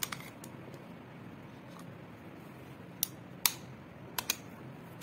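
Sharp metallic clicks from a Zigana 9mm pistol as it is handled for disassembly, its parts snapping against each other. The loudest click comes about three and a half seconds in, followed by a quick pair a little after four seconds, over a faint steady hum.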